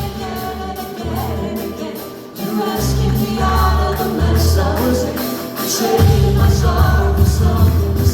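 A worship band and singers performing a song, with sung vocals over bass and drums. The band comes in fuller and louder about six seconds in.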